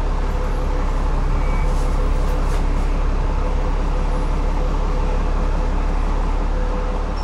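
Cummins ISLe8.9 diesel engine and ZF six-speed automatic gearbox of an Alexander Dennis Enviro500 double-decker bus, heard from inside the passenger cabin while the bus runs at a steady speed. The drone holds one pitch without revving up or down.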